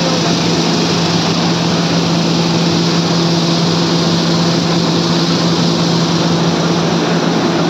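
Wheat destoner machine running steadily: an even mechanical rush with a steady low hum under it.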